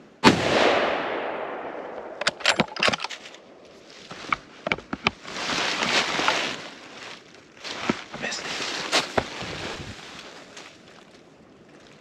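A single gunshot from a deer hunter's gun, with an echo that rolls away over about two seconds. It is followed by a quick series of sharp clicks and then rustling and handling sounds.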